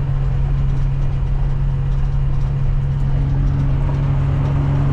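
Pickup truck engine and road drone while driving: a steady low hum over a rumble, with a second, higher hum coming in about three seconds in.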